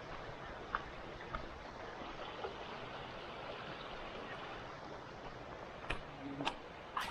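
Mountain stream flowing with a steady rush, with a few short sharp clicks, several of them near the end.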